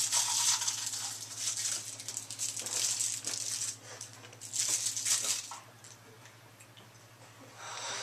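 Smarties candy tablets rattling and crunching as they are tipped from their paper roll into a mouth and chewed. The sound comes in bursts through the first four seconds and again about five seconds in.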